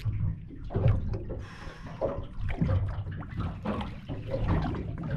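Water lapping and slapping against a small boat's hull in irregular splashes, over a steady low rumble.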